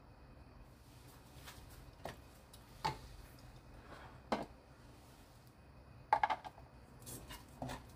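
Scattered knocks and scrapes of a wooden spatula and a glass food container against a frying pan as sticky seasoned dried filefish strips are stirred and scooped. The loudest is a quick cluster of three knocks about six seconds in.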